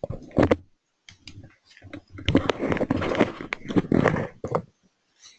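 Clicks and rustling close to the microphone, denser and louder from about two seconds in, in a small room.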